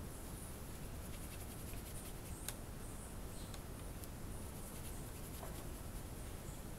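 Quiet outdoor ambience: a steady low rumble with faint high chirps and a few small clicks.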